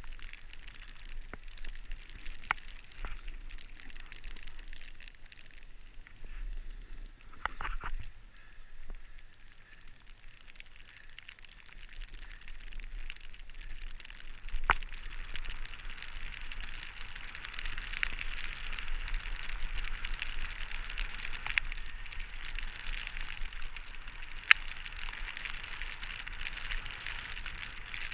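Snowboard sliding down a snowy run: a steady hiss of the base and edges on snow that grows louder about halfway through, with a few sharp clicks.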